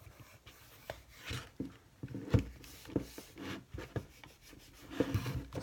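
Irregular rubbing and scrubbing strokes on an Olympus Infinity Jr. compact film camera's body as sticky grime is cleaned off, with a few sharper knocks of handling, the loudest about two and a half seconds in and near the end.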